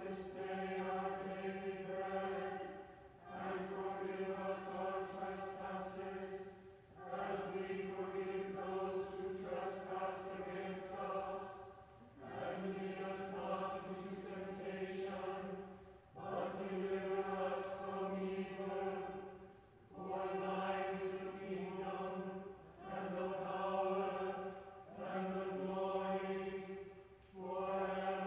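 Church choir chanting a prayer on a nearly unchanging reciting note, in phrases of a few seconds each with short breaths between.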